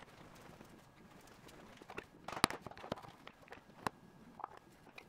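A few sharp clicks and knocks of plastic bar clamps and 3D-printed parts being handled and set down on a workbench mat, the loudest about two and a half seconds in, with softer handling rustles around it.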